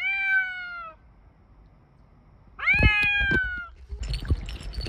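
A cat meowing twice, each call about a second long and rising then falling in pitch. Near the end comes splashing water as the cat wades and swims into the river.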